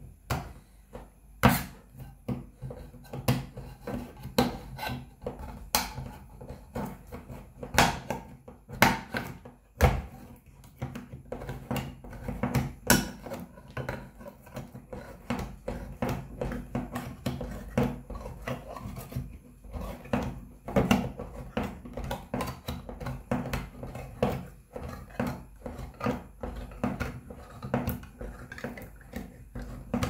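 Leatherman Surge's lever-type can opener punching and prying its way around the rim of a tin can: a long run of irregular, sharp metal clicks and crunches, a little more than one a second.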